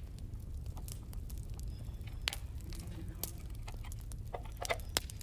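Scattered sharp clicks and taps from handling a digital multimeter's plastic case, over a steady low hum.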